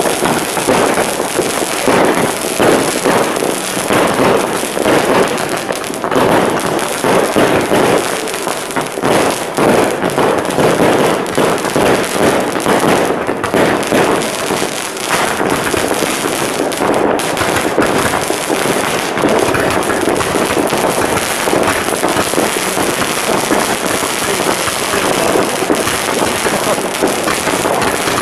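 Many fireworks going off at once: a dense, unbroken rattle of bangs and crackles, with rocket trails rising through the smoke.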